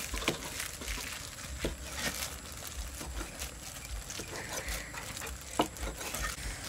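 A cleaver chopping boiled beef intestine on a wooden chopping block: a few irregular knocks of the blade on the wood, the loudest near the end.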